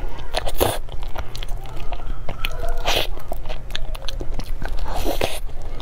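Close-mic mouth sounds of a person eating soft, creamy durian flesh: wet bites, smacking and chewing. A few louder mouthfuls come about half a second in, at about three seconds, and around five seconds.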